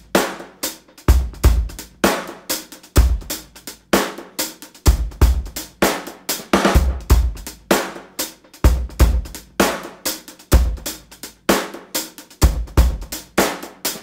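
Background music: a drum-kit beat playing on its own, with kick, snare and cymbal hits in a steady rhythm.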